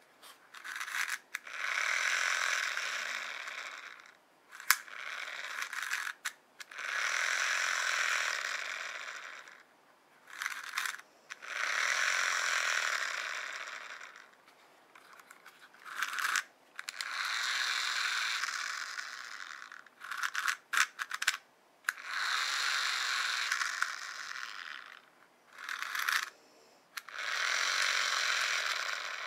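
Miniature battery-powered toy fan whirring in about six runs of two to four seconds each, its small motor and plastic blades starting and stopping, with sharp clicks of its push buttons in the gaps between runs.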